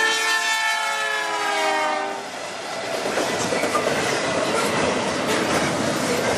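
Diesel freight locomotive's horn sounding as it passes, its chord dropping in pitch with the Doppler effect and stopping about two seconds in. Then the clickety-clack and rolling noise of double-stack container cars going by.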